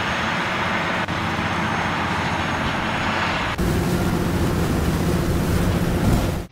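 Tractor running under load as it pulls a heavy tine harrow through straw stubble, a steady mechanical rush of engine and dragging tines. About three and a half seconds in the sound changes abruptly to a deeper, steadier engine hum from a second tractor and harrow.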